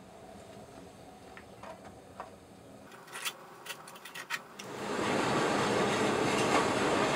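A few sharp metallic knocks, then about five seconds in the gas burner of a firebrick melting furnace starts up and runs with a loud, steady rushing noise.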